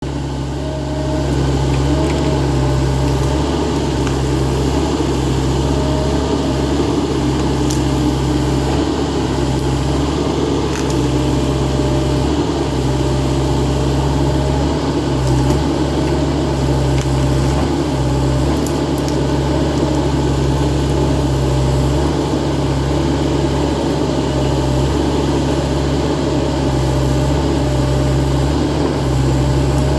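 Kotrack KE70 crawler excavator's engine running steadily, a constant low hum that settles in about a second in.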